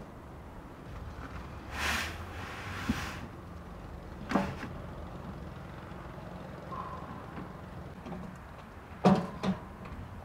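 Outdoor building work: a rushing scrape lasting about a second, then a few sharp knocks, the loudest a double knock near the end, over a steady low hum.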